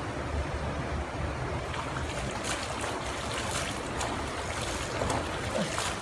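Shallow river water running steadily, with short splashes about halfway through and on from a person wading and splashing water on himself.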